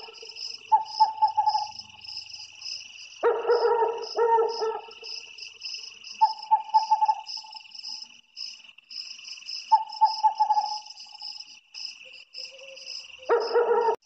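An owl calling: a loud run of rapid notes about three seconds in and again near the end, with single shorter, higher notes in between. Insects chirr steadily underneath.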